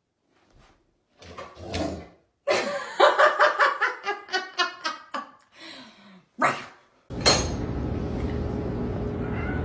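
A large white dog vocalizing in a string of short pitched barks and yelps, quickest in the middle. About seven seconds in, these stop and a steady hum and hiss takes over.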